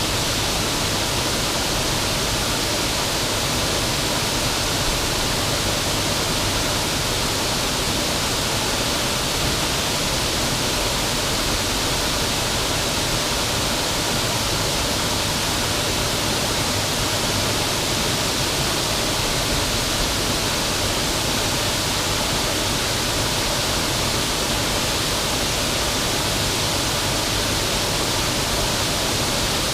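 Steady rush of water pouring over a river waterfall, a constant even roar.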